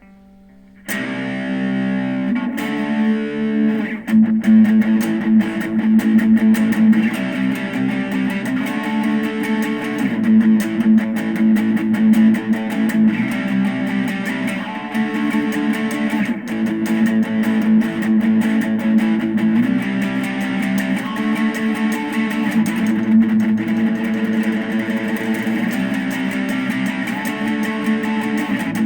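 Electric guitar through an amp's crunch channel at maximum gain, playing distorted rhythm chords. It comes in about a second in and gets louder and heavier from about four seconds, with the chords changing every second or two.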